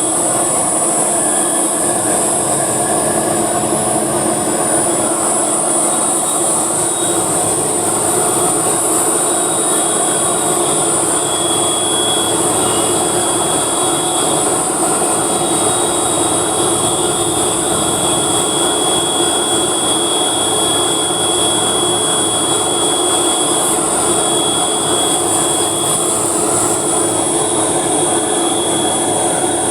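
Heavy machinery running steadily: a loud, unbroken mechanical noise with a strong high hiss and a faint steady whine.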